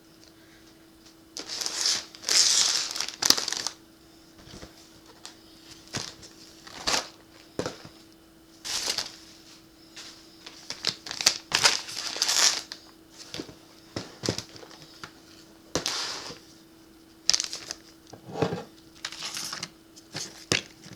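Plastic food and snack packaging crinkling and rustling in irregular bursts as the packages are picked up and arranged, with a few light knocks, over a faint steady hum.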